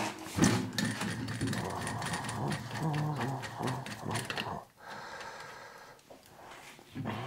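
Clicking and rattling of a scotch-brite abrasive wheel being fitted by hand onto a grinding motor's spindle.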